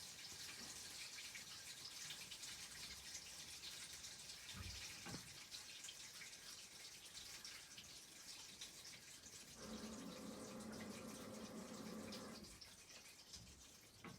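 A sump pump battery backup alarm gives one steady buzzing tone, about three seconds long, roughly ten seconds in, over a faint steady hiss. It is the alarm's repeating once-a-minute warning, which keeps sounding even with a new battery fitted and the outlet powered.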